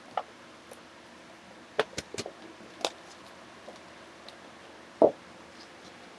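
Scattered light clicks and knocks of small plastic toys and plastic surprise eggs being handled and opened, a few quick ones close together about two seconds in.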